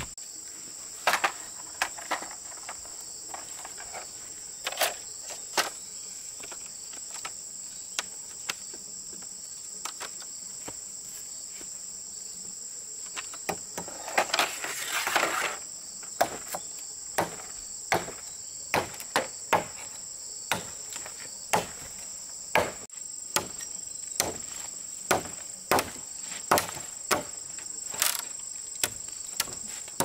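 Sharp knocks, irregular at first, then coming about once a second through the second half, over a steady high chirring of insects. A few seconds of rustling scraping come about halfway through.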